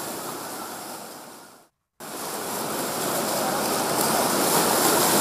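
Rushing floodwater of a river in spate, a steady noise of churning water. It fades away, cuts out for a moment just before two seconds in, then comes back louder.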